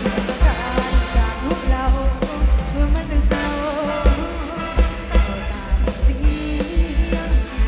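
Live ramwong band music played loud through a stage sound system: a steady kick-drum beat with cymbal hits under a wavering lead melody.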